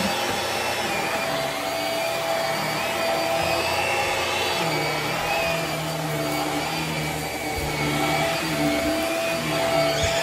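Hart bagless upright vacuum cleaner running steadily with a constant motor whine while it is pushed over carpet.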